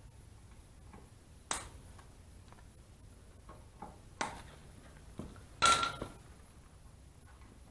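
Three sharp knocks of hard objects, a few seconds apart. The last and loudest one rings briefly with a clear metallic ping.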